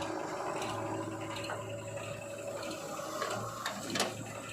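A heavy machine's diesel engine running steadily, with a few sharp clanks and knocks, the loudest near the end.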